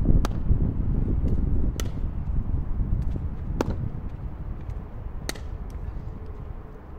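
Pickleball paddle striking the plastic ball in a rally: four sharp pops about a second and a half to two seconds apart, with a few fainter ticks between, over a steady low rumble.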